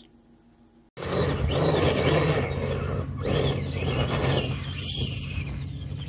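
About a second of near silence, then the brushed electric motor of a Traxxas Stampede RC monster truck on paddle tires whining up and down in repeated throttle bursts as it drives on snow, over a steady low hum.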